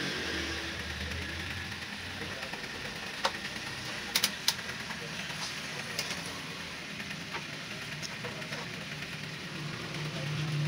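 Sharp plastic clicks and taps as a car tail light housing is worked with a screwdriver and handled, a close group of three about four seconds in and single ones either side, over a steady hiss.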